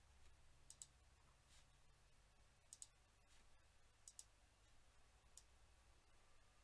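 Faint computer mouse clicks: three quick double-clicks and a single click.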